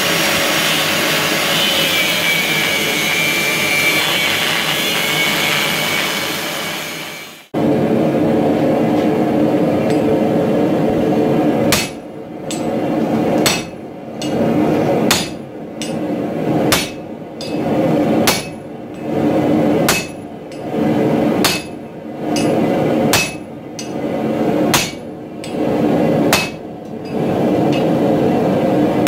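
An angle grinder runs steadily on a steel bar, then stops abruptly. Next a sledgehammer strikes a handled top tool held on a glowing hammer blank on the anvil: about eleven blows, roughly one every second and a half, over a steady background noise.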